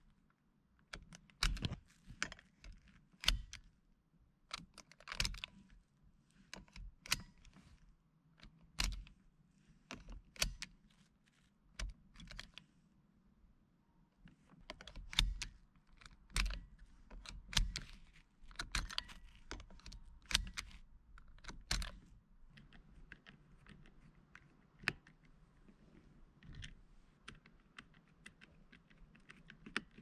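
Seat belt latch plate clicking into the driver's buckle of a 2004 Honda Civic and being released, over and over, with sharp irregular clicks every second or so that turn sparser and fainter in the last third. The buckle is being worked to test its buckle switch, the suspected cause of SRS fault code 9-3 and the airbag warning light.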